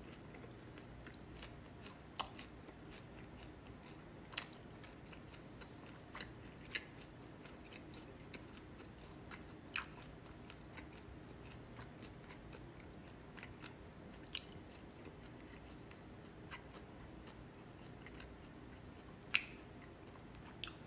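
A person eating noodles quietly, chewing, with a sharp click every few seconds from chopsticks against a plastic takeaway bowl, over a low steady room hum.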